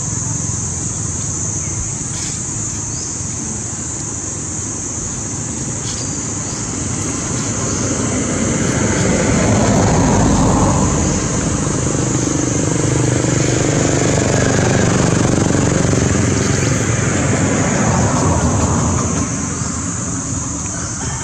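Motor vehicle engine noise that swells about eight seconds in and fades near the end, over a steady high-pitched buzz.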